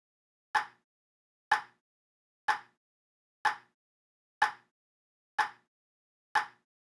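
A short, identical pop sound effect repeated seven times, about once a second, with silence in between; each pop marks one more toy vehicle appearing in the stop-motion stack.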